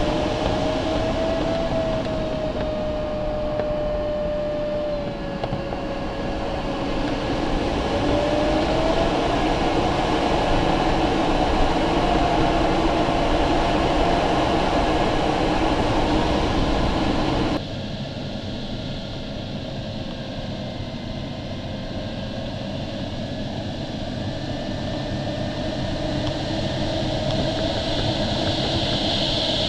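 Steady rush of airflow inside the cockpit of an LS-4a glider in flight, with a thin tone that wanders slowly up and down in pitch. The noise drops suddenly in level a little past halfway.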